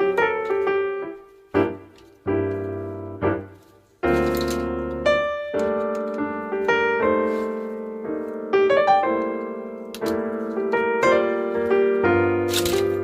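Piano music: chords and single notes struck and left to ring. The playing thins out and drops quiet for a moment just before four seconds in, then comes back fuller.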